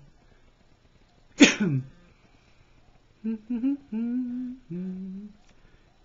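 A man humming about four notes, the last one lower. Before that, about a second and a half in, there is one short, loud vocal sound that falls in pitch.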